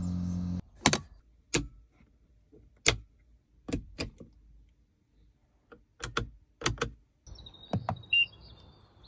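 About a dozen sharp clicks and knocks from a Mitsubishi Pajero Sport's doors, latches and controls, several in quick pairs. A steady hum cuts off about half a second in.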